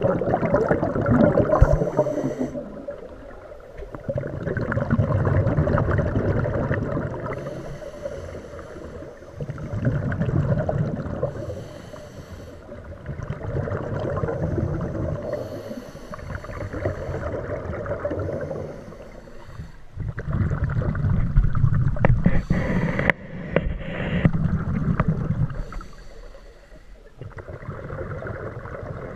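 Scuba diver breathing through a regulator underwater: a short hiss on each inhale alternating with a longer rush of exhaled bubbles, a breath every four seconds or so.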